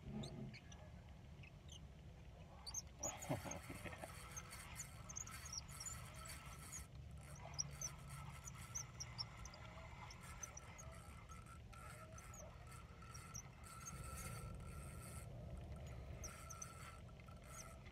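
Faint outdoor ambience: scattered short, high chirps from small birds over a low rumble of wind.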